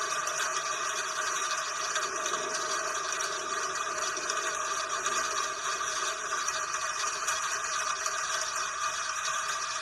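Steady rain, an even rushing hiss with no thunder and no single drops standing out.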